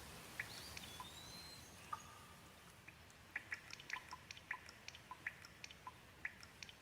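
Gentle rain: a faint steady hiss with single drops ticking here and there, coming more often in the second half. A faint high gliding note sounds about half a second in.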